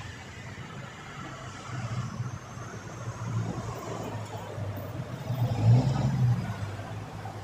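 Road traffic: a steady vehicle engine hum, with a passing vehicle growing loudest a little under six seconds in.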